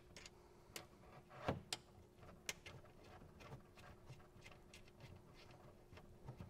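Faint scattered clicks and taps of handling as the braided stainless steel water line's nut is threaded by hand onto the brass outlet fitting of a plastic filter housing.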